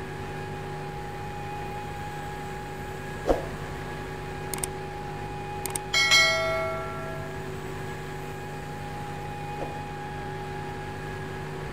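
Steady machinery hum of the simulated engine room, with a few sharp clicks. About six seconds in, a subscribe-button chime rings out like a bell and fades over about a second and a half.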